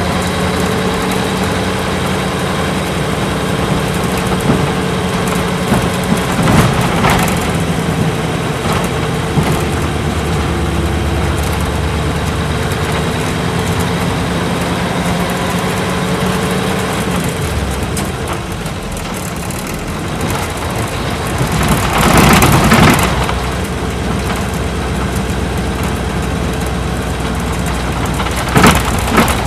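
Isuzu Cubic KC-LV380L city bus's V8 diesel engine running as the bus drives, heard from inside the cabin. The steady engine note falls away about two-thirds through, and a brief loud rushing noise rises near the end.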